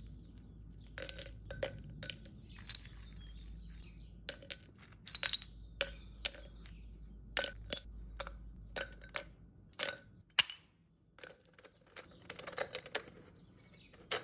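Chunks of crushed aluminum cans dropped and packed by hand into a crucible: a series of irregular light clinks and taps, some close together.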